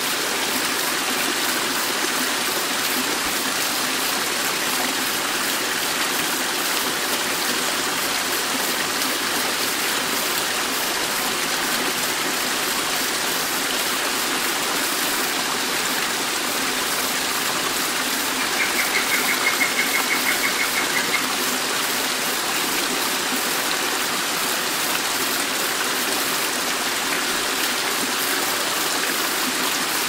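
Stream water rushing steadily over rocks. A little past the middle, a bird gives a rapid high trill lasting about two and a half seconds.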